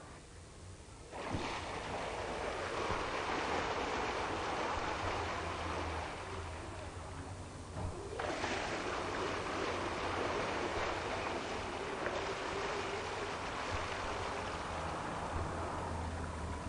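A steady rush of water with a low engine hum underneath, as from a lake ship under way. The sound starts about a second in and changes abruptly about eight seconds in.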